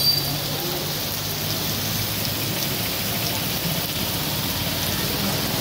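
Heavy rain pouring down steadily, an even hiss of rain falling on streets and rooftops, with a faint low hum underneath.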